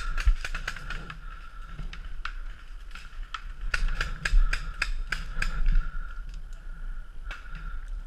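Paintball markers firing as quick volleys of sharp pops: a few shots at first, a dense run of shots in the middle, then a single shot near the end.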